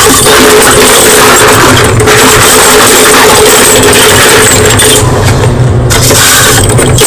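White chalk being crunched close to the microphone: a loud, dense, continuous crackle, with the crisp high end dropping away for about a second around five seconds in.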